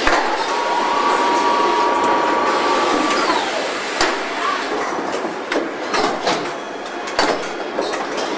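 Car assembly-line machinery: industrial robot arms and body-shop tooling running over a constant machine noise. A whine rises, holds for about three seconds and falls away, and a series of sharp metallic clanks and clicks follows in the second half.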